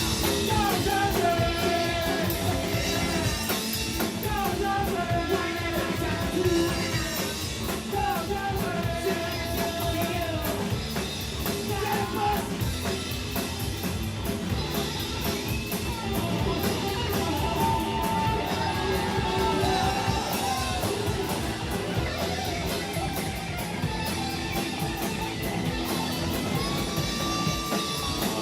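Rock band playing live: distorted electric guitars and a drum kit, with a voice singing over them at times.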